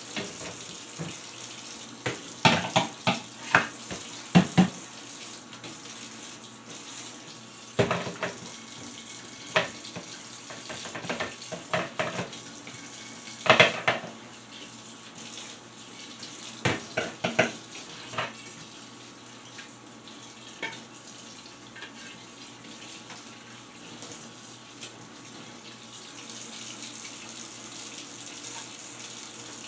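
Kitchen tap running steadily into a stainless steel sink while dishes are washed by hand, with several short bursts of clinks and knocks from the dishes against each other and the sink during the first two-thirds.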